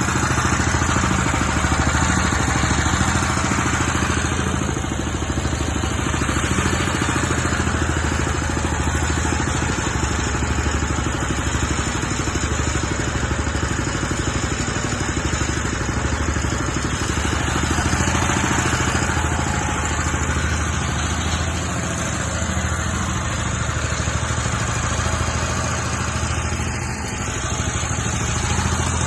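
Engine of a hydraulic soil-boring rig running steadily at a constant speed.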